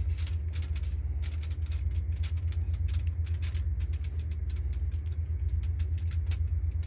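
A steady low mechanical hum, like an engine running, with many light clicks and crinkles over it as a silicone basting brush works olive oil into sliced potatoes on a foil-lined tray.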